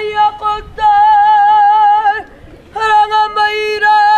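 A woman's karanga, the Maori ceremonial call of welcome: one high voice holding long wavering notes. It breaks off about two seconds in, then starts again about half a second later.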